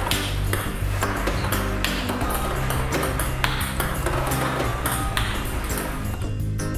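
Background music with a steady beat, over the sharp pinging of a celluloid table tennis ball struck by a hardbat and bouncing on the table. The music changes near the end.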